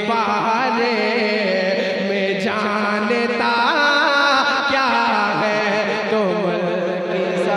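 A man's voice singing a naat (Urdu devotional poem) in long, drawn-out melismatic phrases, amplified through a public-address system.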